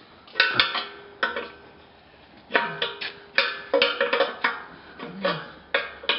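Steel wrench clinking against the fuel filter fitting on an old tractor: about a dozen sharp metallic clinks at an irregular pace, each with a brief ringing tail.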